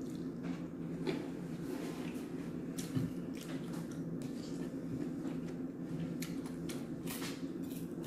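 Close, wet chewing and lip-smacking of a person eating, a scatter of short clicks and squishes, over a steady low hum.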